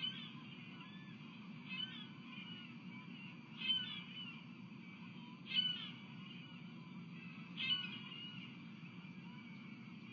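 Osprey calling: five sharp, high calls about two seconds apart, with lighter chirps between them, over a steady low background rumble.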